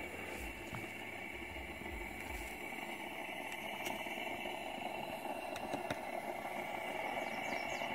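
Steady hiss with faint scattered crackles from a frying pan of cooking oil heating on a Coleman propane camp stove.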